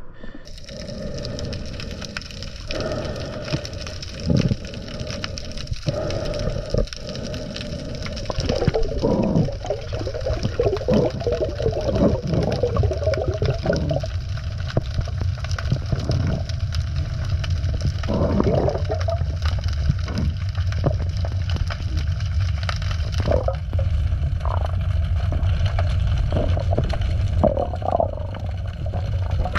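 Water sloshing and gurgling against a GoPro camera during a freedive: a steady low rumble with bursts of bubbling, busiest in the middle stretch.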